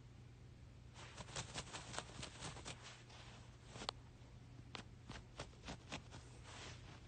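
Light, irregular scratching and clicking, a quick run of faint scratches and taps starting about a second in and going on in bursts.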